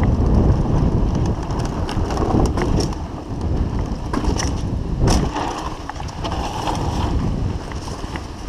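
Wind buffeting a GoPro microphone over the rumble of knobby tyres on a dirt trail as a full-suspension mountain bike (2015 Trek Fuel EX 7) descends at speed. Many short clicks and knocks through it from the chain and frame rattling over bumps.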